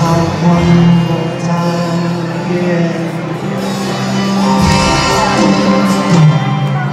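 Live soft-rock band music through a stadium PA, heard from the crowd: acoustic guitar and band with a male voice singing.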